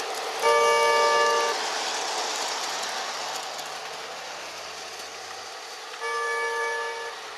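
G-scale model train running on garden-railway track with a steady running noise, overlaid by two train-horn blasts, each about a second long: one about half a second in and one near the end.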